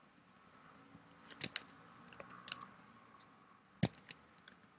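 Scattered computer keyboard keystrokes and clicks over faint room tone. There are a few in quick succession about a second and a half in, and a sharper click near the end.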